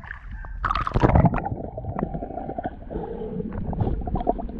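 Water heard underwater in a shallow seagrass bed: a loud rushing surge about a second in, then churning and many sharp crackling clicks as a foot stirs up the sandy bottom. A steady low hum runs beneath it from about a second and a half on.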